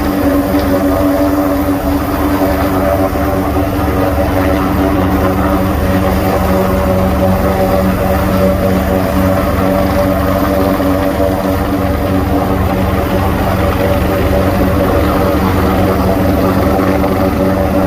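Search-and-rescue helicopter hovering close by: a steady turbine hum with a fast, even beat of the main rotor blades, unchanging throughout.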